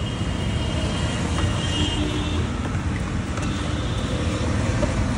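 Steady road traffic noise from passing vehicles, mostly deep, with no distinct events.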